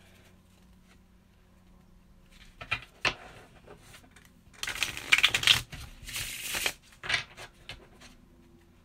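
Deck of tarot cards being riffle shuffled: a couple of taps as the deck is split, then about halfway through a fast flurry of cards flicking together, followed by a shorter second flurry and a last tap.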